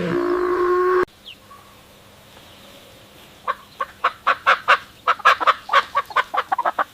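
A low, drawn-out animal call that cuts off abruptly about a second in, then a fowl giving a fast run of short, sharp calls, about four or five a second, from about halfway through.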